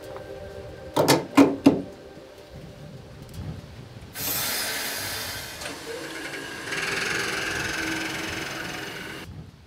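Biogas filling nozzle being coupled to a truck's fuel inlet, with three sharp clicks about a second in, then gas hissing steadily as it flows into the tank from about four seconds in, stopping shortly before the end.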